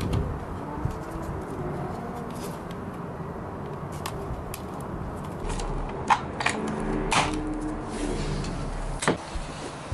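Clicks and knocks of a white plastic seat insert being pressed into the painted pressed-steel body of a Tonka Jeepster toy. A few sharp clicks come in the first half and louder ones in the second half.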